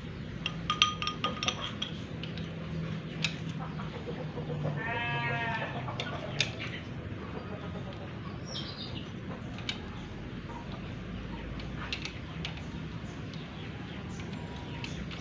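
A goat bleats once, about five seconds in, a single wavering call lasting about a second. A few light clinks come near the start, over a steady low background hum.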